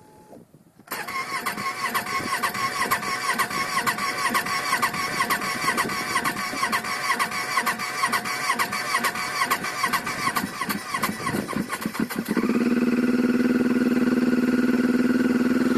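2007 Yamaha Phazer snowmobile's four-stroke twin being cranked by its starter for about eleven seconds with a rhythmic, wavering whine. Near the end it catches and settles into a steady run. It is a hard cold start despite fresh premium gas, new spark plugs and a good battery.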